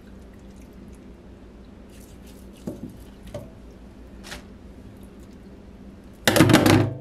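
A raw Cornish hen being handled and trimmed with a knife in a stainless steel sink: a few soft wet taps and knocks. About six seconds in there is one loud clatter against the steel sink, with a faint ring after it.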